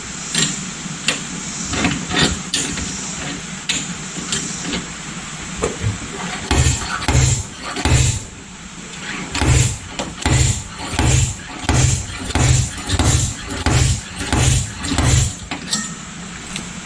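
Electric dent puller (stud welder) buzzing in short repeated pulses, about two a second through the second half, each pulse a brief low hum, with scattered clicks and taps before the run starts.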